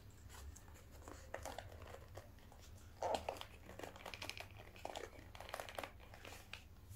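Packaging crinkling and a seal being torn as a sealed accessory box is worked open: faint, scattered crackles and rustles, busiest from about three seconds in until near the end.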